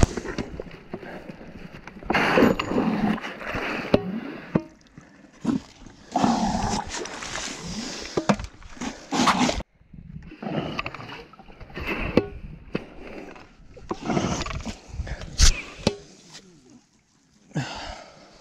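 Hands digging into a mud-shrimp burrow in wet ground, in irregular bursts of scraping and handling noise with a few sharp clicks.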